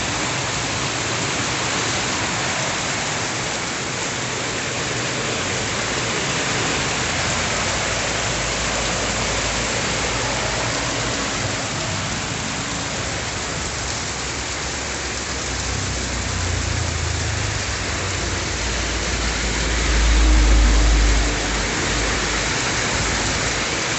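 Very heavy rain pouring down in a dense, steady hiss. A low rumble swells briefly near the end and is the loudest moment.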